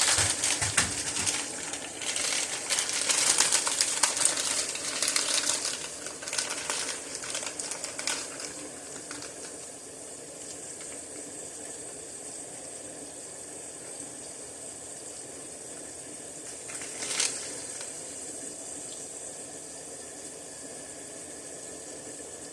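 Steaks frying in a pan, sizzling and crackling busily for the first several seconds, then settling to a quieter, steady sizzle.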